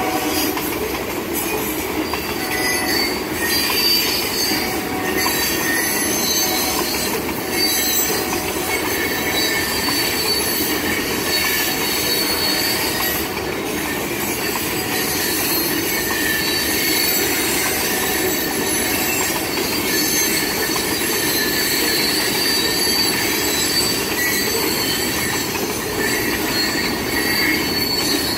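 Freight train of covered hopper cars rolling steadily past, its steel wheels squealing against the rails in thin, high, wavering tones over a continuous rolling rumble.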